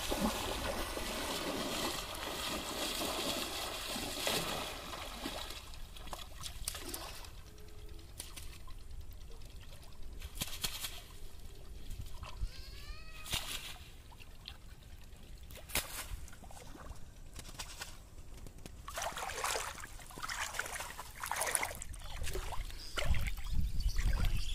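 Pond water splashing heavily as a man thrashes about in the shallows, then quieter trickling and dripping as a wet cast net is gathered and pulled out of the water.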